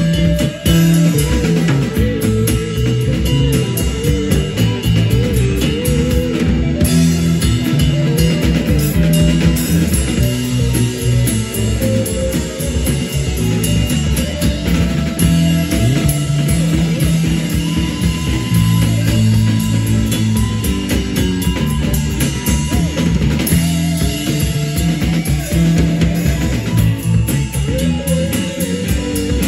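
Live rock band playing through a PA: electric guitars over a drum kit, with a steady beat.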